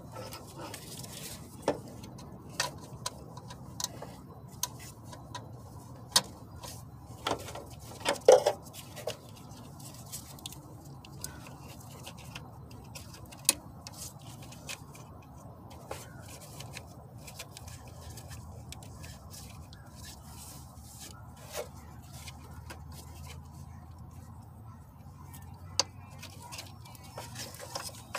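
Hand tools and metal parts being handled while working on a car engine: irregular clicks and light knocks, with a short cluster of louder knocks about eight seconds in, over a steady low hum.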